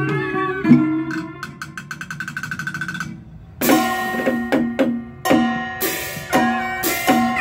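Vietnamese traditional ceremonial ensemble (Cao Đài nhạc lễ) playing with zither, moon lute, reed horn, drum and gong: a fast run of repeated strokes that speeds up, a brief pause about three seconds in, then the full ensemble comes back in with sharp struck beats under a held reed melody.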